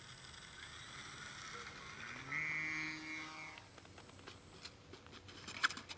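Electric motor and propeller of a foam RC Boeing P-26 Peashooter model spooling up in a rising whine about two seconds in, holding a steady whine for about a second, then throttled back and fading. A few sharp clicks follow near the end, the loudest just before it ends.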